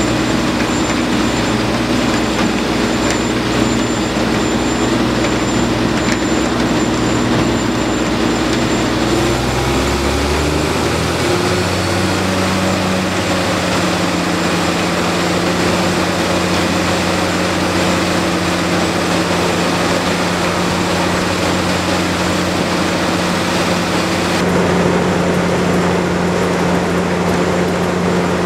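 Terex Pegson 4242SR tracked mobile crusher working limestone: a steady heavy diesel drone under a dense clatter of rock going through the machine. The engine note shifts about ten seconds in.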